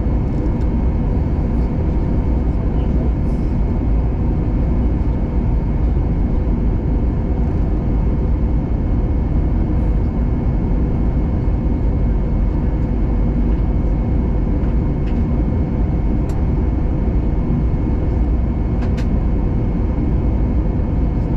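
Steady airliner cabin noise on approach: engine and air-rush noise heard from inside the cabin, a deep, even rumble with a few faint steady hums.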